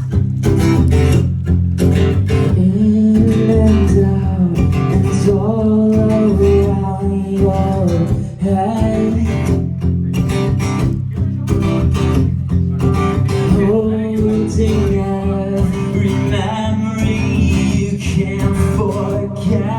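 Acoustic guitar strummed and picked, playing the introduction to a song.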